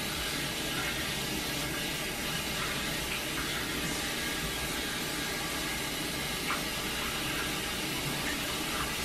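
Kitchen sink faucet running steadily, its water falling into the sink and over hair being washed under the stream.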